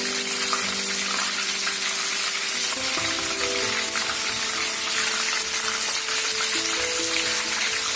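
Battered chicken pieces deep-frying in oil: a steady crackling sizzle. Soft background music of held notes plays under it.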